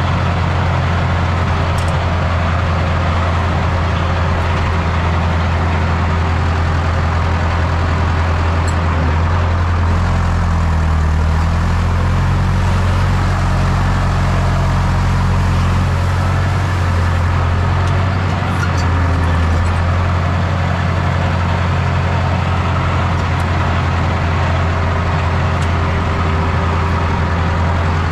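Tractor's diesel engine running steadily under load, its engine speed dipping and picking up again about ten seconds in.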